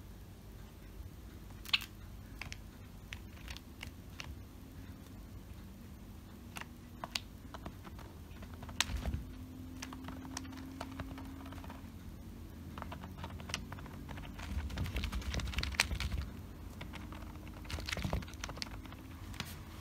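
Irregular sharp taps and clicks of a Java sparrow pecking at and stepping about on cloth house slippers, with a busier stretch of tapping and rustling about three quarters of the way through.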